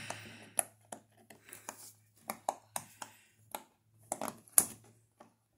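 Silicone pop-it fidget toy bubbles being pressed through one by one, giving an irregular series of short soft pops.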